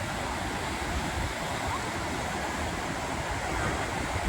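Ocean surf washing onto a beach: a steady rushing noise with an uneven low rumble.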